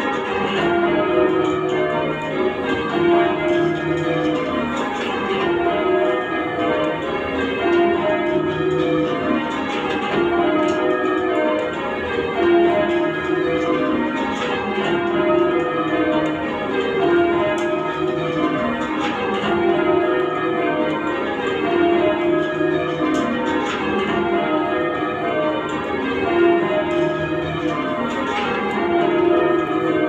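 Change ringing on Bristol Cathedral's ring of eight church bells (21 cwt tenor, tuned to E-flat), heard from the ringing chamber below. The bells strike one after another in continuous rows, each row stepping down in pitch.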